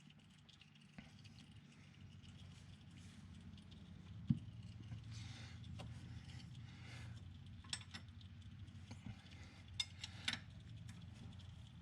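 Faint scraping and a few sharp metal clinks of a wrench and steel drain plug being handled while the plug is refitted in the tractor's drained transmission case. The loudest clink comes a little over four seconds in, with several more near the end.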